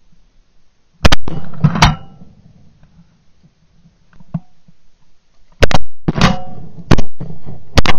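Shotgun blasts at passing ducks, heard from a camera mounted on the gun barrel: two shots about a second in, then a quick string of four or five shots from about five and a half seconds on, each ringing out briefly.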